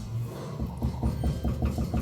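Background music with a steady beat, its bass and drums coming in about half a second in.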